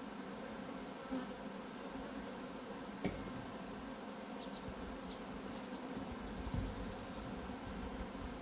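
Honeybees buzzing in a steady, even hum over an open hive, with one sharp click about three seconds in.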